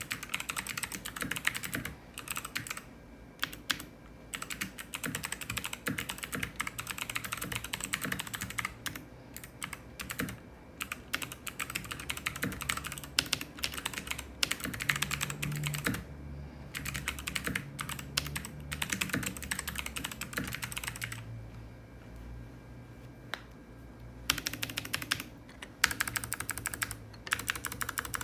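Typing on a Glorious GMMK TKL mechanical keyboard with unlubed Kailh Speed Bronze clicky switches and black PBT keycaps: fast runs of sharp key clicks. The typing breaks off briefly a few times, with a pause of about three seconds near the end.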